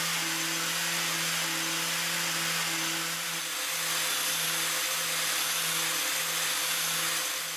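An angle grinder mounted on an Elliott 10M shaper, its abrasive disc surface-grinding a soft black steel plate. It makes a steady hum under a hiss of grinding, and the hum pulses faintly about once a second. The sound cuts off suddenly at the end.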